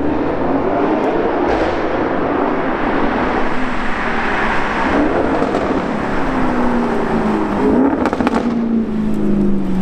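Audi RS6 C7's twin-turbo V8 through an Akrapovič exhaust accelerating hard, then easing off with a falling engine note. A quick run of sharp exhaust pops comes about eight seconds in.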